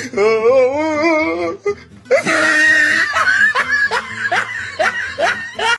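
People laughing and shrieking. A single wavering high voice comes first, then from about two seconds in, loud choppy laughter and cheering that cuts off suddenly at the end.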